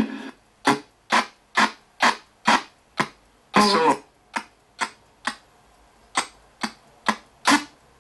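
RTC ghost box radio sweeping through stations, putting out short clipped fragments of broadcast voices and static about twice a second. There is one longer fragment near the middle and a brief lull shortly after.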